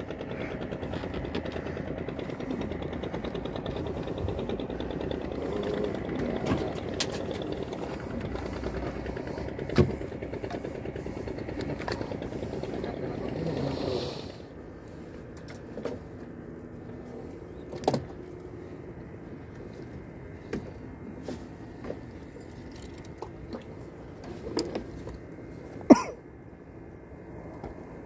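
Fishing boat's engine running steadily, then falling away to a much quieter hum about halfway through, with a few sharp knocks, the loudest near the end.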